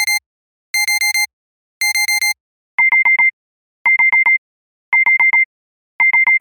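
Digital alarm clock beeping in quick bursts of four short electronic beeps, about one burst a second. About three seconds in, a second alarm pattern takes over: the same four-beep rhythm with a slightly different, harder-edged tone.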